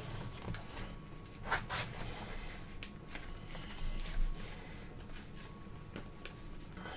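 Trading cards being handled and flipped through by hand: soft rustles and a few light taps, with a faint steady hum underneath.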